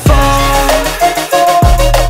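Background music: an electronic pop track with a steady beat and deep bass notes that fall in pitch, once at the start and again near the end.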